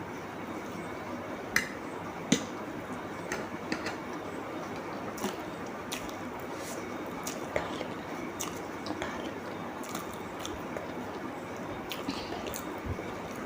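Close-up eating sounds: wet chewing and squishing of food, with many small sharp clicks and two louder ones in the first few seconds, over a steady background hiss.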